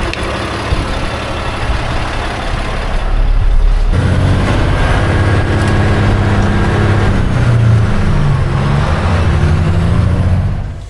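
Loaded grain truck's engine running, pulling harder and louder from about four seconds in, its pitch rising and falling as it picks up speed.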